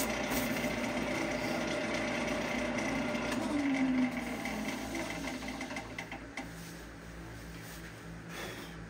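Wood lathe running with a steady motor hum and the noise of cutting, which grows quieter after about four seconds and drops again around six seconds in.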